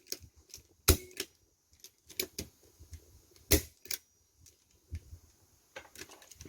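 Clicks and snaps of the MGC M93R Auto-9 airsoft pistol's trigger and hammer mechanism being worked by hand, with the gun partly taken apart. The sharpest clicks come about a second in and at about three and a half seconds, with lighter clicks between and a quick cluster near the end.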